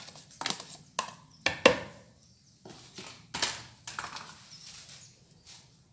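Plastic blender jar and lid being handled and fitted, giving a run of uneven sharp clicks and knocks, the loudest about a second and a half in. The blender motor is not running.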